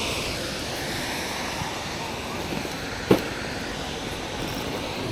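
Steady rush of river water with some wind on the microphone, and a single sharp click about three seconds in.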